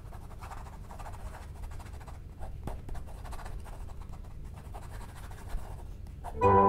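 Steady low hum of room tone with faint soft rustling and small clicks. Music with sustained pitched notes starts near the end.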